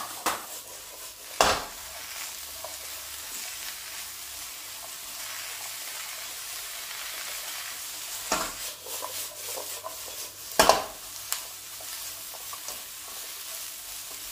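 Sliced bitter gourd, onions and spice powders sizzling in a hot wok as a spatula stirs and sautés them, with a steady sizzle and a few sharp knocks of the spatula against the pan, the loudest about a second and a half in and at about ten and a half seconds.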